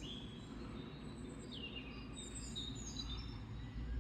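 Faint birdsong: several short, high, falling chirps from small songbirds, over a steady low outdoor rumble.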